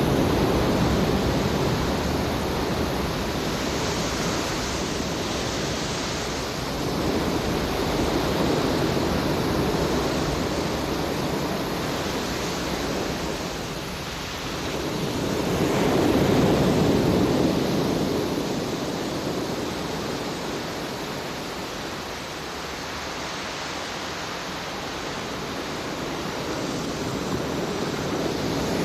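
Sea surf: waves breaking and washing up the shore in slow swells that rise and fall every several seconds, loudest about sixteen seconds in.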